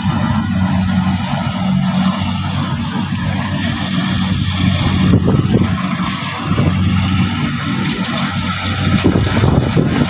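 Engine of a small rice combine harvester running at a steady pitch as it cuts through ripe rice.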